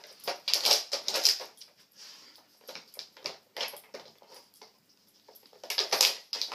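Dog sniffing in short, noisy bursts and nosing at a plastic Dog Twister treat puzzle, with light clicks and knocks of its plastic bones and pieces. The bursts are loudest about a second in and again near the end.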